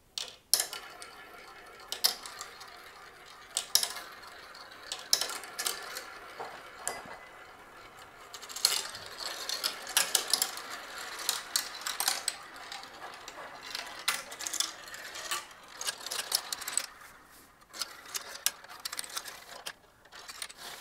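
Marbles rolling and clattering down the plastic tracks and funnels of a miniature building-brick marble run: a steady rattle of rolling with many sharp clicks and knocks as they drop and hit the pieces, thinning to a few scattered clicks near the end.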